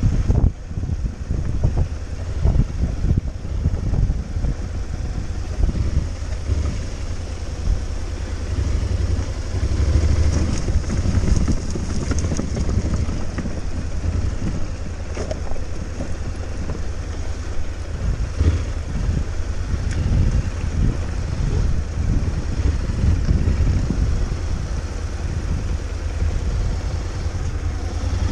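Honda NC750X's parallel-twin engine running as the motorcycle rides over a rocky, loose-stone track, a steady low rumble. Frequent short knocks and clatter come from stones under the tyres and the suspension.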